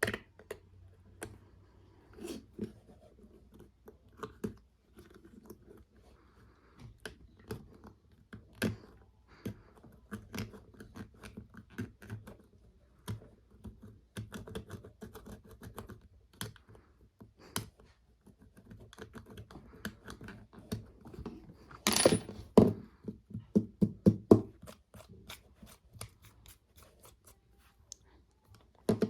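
Irregular small clicks, taps and light scraping of a Nokia Asha 302 phone and its small plastic and metal parts being handled and worked on a hard work surface, with a louder run of rattling clicks and scrapes about three-quarters of the way through.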